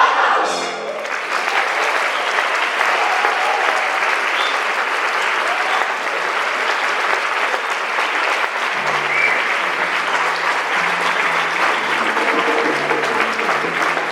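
Audience applauding steadily after a choir song ends, with a few brief whoops. About nine seconds in, low instrumental notes start playing under the applause.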